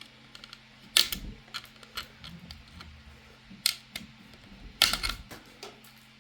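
Sharp plastic clicks and snaps as 3D-printed support material is pried and broken away from a printed part. The loudest snaps come about a second in, near four seconds, and in a quick cluster around five seconds, with smaller ticks between them.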